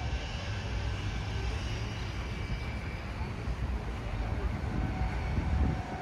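Outdoor street ambience: a steady low rumble that swells to its loudest about five and a half seconds in, with faint voices in the background.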